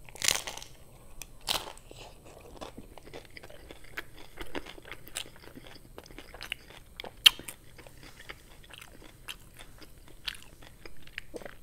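Close-miked biting into a crunchy hard taco shell, with a loud crunch at the start and another about a second and a half in, then chewing: a long run of small crunches and clicks, one sharper crack about seven seconds in.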